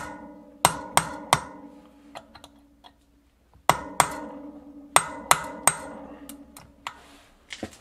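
Hammer blows on a drift set against the threaded ball ring of a 1980 Sturmey Archer three-speed hub, knocking the ring loose to unscrew it. Two quick runs of four and five metal-on-metal strikes, each ringing on briefly through the wheel, then a few lighter taps.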